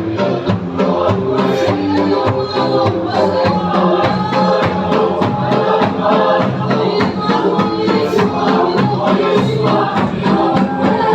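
A congregation singing a hymn together, with steady percussion keeping the beat.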